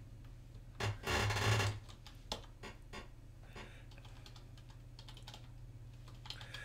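Typing on a computer keyboard: a quick run of key presses about a second in, then single keystrokes spaced out as a terminal command is entered.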